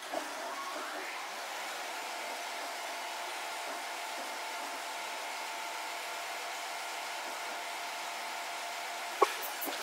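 Steady whirring hum of forge-shop machinery running, with a brief rising whine in the first second and a single sharp knock about nine seconds in.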